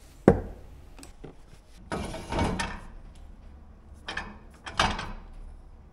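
Workshop handling noises: a sharp knock, then a scrape lasting under a second, and two more short clatters near the end.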